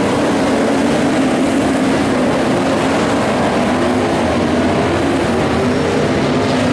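A pack of IMCA modified dirt-track race cars running their V8 engines hard at racing speed. It is a loud, continuous engine drone whose pitch wavers up and down as the cars go through the turn.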